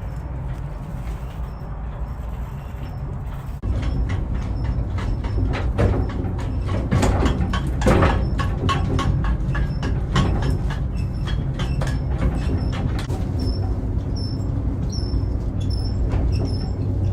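Fenelon Place Elevator funicular car riding its track on the bluff: a steady low rumble that grows suddenly louder about three and a half seconds in, with quick rattling and clicking from then on and short high squeaks near the end.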